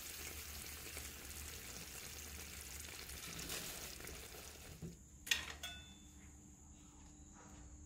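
Chicken curry sizzling in a pan, a dense steady hiss that stops abruptly about five seconds in. A single sharp click follows, then only a faint steady high tone.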